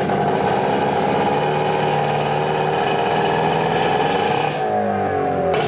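Car engine running steadily, its pitch falling near the end as the revs drop.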